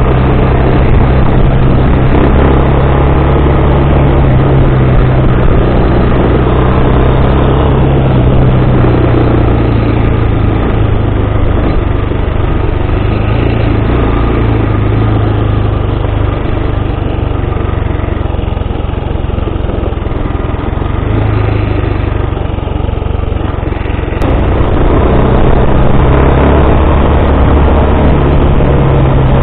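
Bashan 250 cc quad bike's engine running steadily during a ride, easing off for a stretch past the middle and picking up again about three quarters of the way through.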